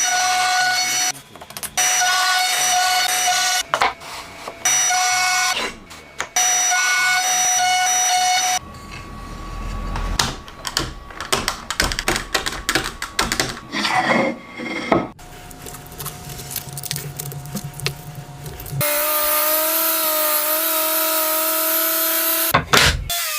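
Woodworking tools at work in a string of short cuts. A power tool's motor runs with a steady whine that starts and stops several times, then comes a stretch of irregular knocking and scraping from hand work on wood, and near the end another power tool runs steadily with a hiss of cutting.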